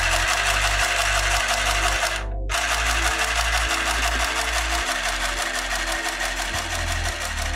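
Handheld sewing machine running, sewing a chain stitch through copy paper: a fast, even clatter that stops briefly about two and a half seconds in, then carries on.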